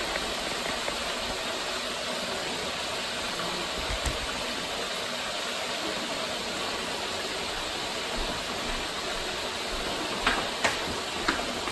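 Pieces of pork shoulder frying in hot lard in a copper pot for carnitas: a steady sizzle, with a few light clicks near the end.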